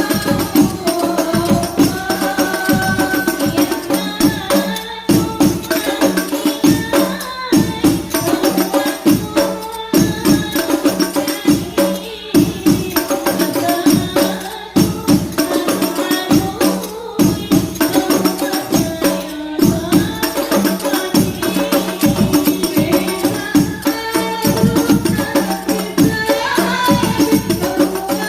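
Habsyi (hadrah) ensemble playing: rebana frame drums beaten by hand in a fast, steady interlocking rhythm, with voices singing a devotional chant over them.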